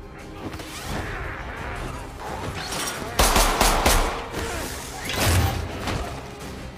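Fight-scene sound effects: a quick run of about five sharp bangs or hits about three seconds in, then a heavy low thud near the end, over a dramatic film score.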